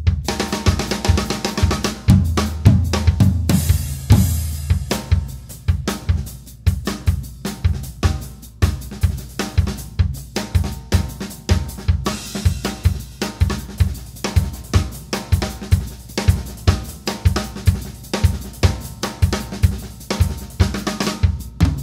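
Drum kit played solo: a dense, fast run of strokes across snare, toms and bass drum with SABIAN cymbals. A cymbal crash rings out for about a second roughly three and a half seconds in.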